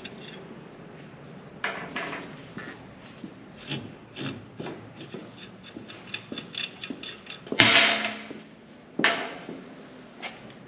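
Hand tools and metal parts being handled in a car workshop: scattered clicks and light knocks, then a loud metal clank that rings briefly about seven and a half seconds in, and another sharp clank about a second and a half later.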